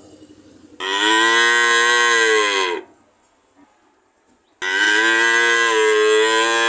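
Cow mooing: two long moos of about two seconds each, a short pause between them, the second still going at the end.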